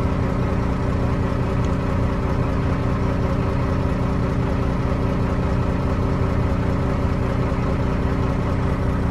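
An engine idling steadily with a constant hum.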